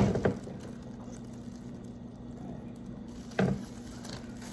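Food being handled and eaten, with soft wet squishing, and short louder knocks at the start and about three and a half seconds in, over a steady low hum.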